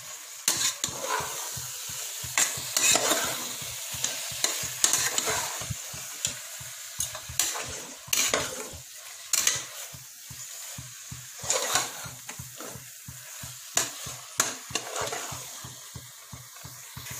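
Chicken pieces sizzling as they are sautéed in onion-tomato masala in an aluminium pressure cooker, with a steel spoon scraping and knocking against the pot at irregular moments as it is stirred.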